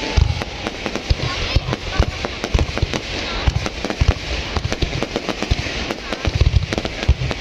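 Aerial fireworks display: many shells bursting at once, with dense rapid crackling over repeated low booms.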